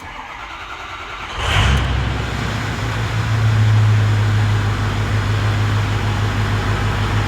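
2006 Ford F-350's 6.0-litre Power Stroke V8 turbodiesel cranking for about a second and a half, then firing and settling into a steady idle. It now starts because the damaged IPR valve that caused the crank-no-start has been replaced.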